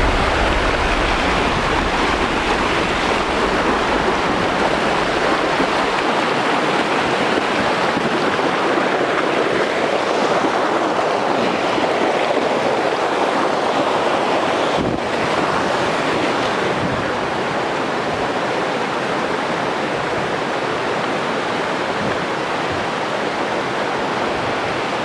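Steady rush of a waterfall's falling water, with wind rumbling on the microphone for the first several seconds.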